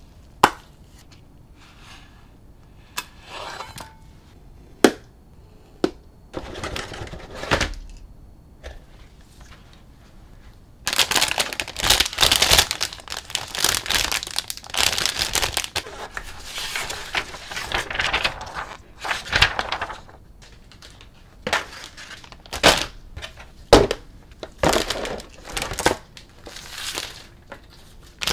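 A few sharp clicks and taps, then long stretches of crinkling from the sealed plastic bags holding the model kit's runners as they are handled, with further bursts of crinkling near the end.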